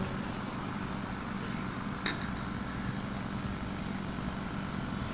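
Steady low hum over a faint hiss, with one faint click about two seconds in.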